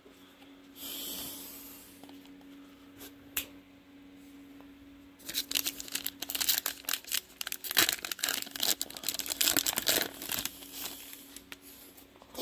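A plastic trading-card pack wrapper being torn open and crinkled. There is a short tearing hiss about a second in, then a long stretch of dense crackling from about five seconds in until near the end.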